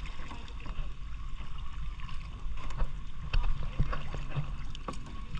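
Paddle strokes splashing as a small boat is paddled through calm water, with a few sharper splashes or knocks a little past the middle, over a steady low rumble.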